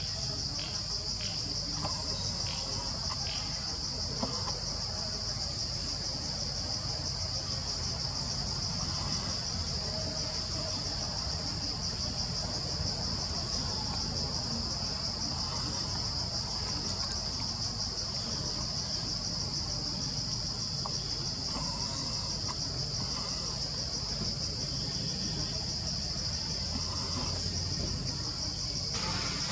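Steady, high-pitched insect chorus over a low rumble.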